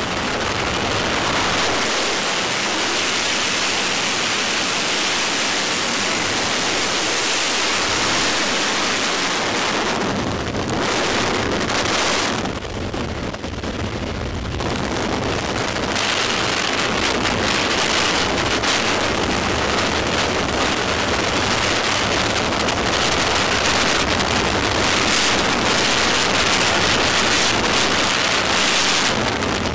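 Freefall wind rushing over the camera microphone of a skydiver in freefall: a loud, steady roar of noise that thins briefly twice near the middle.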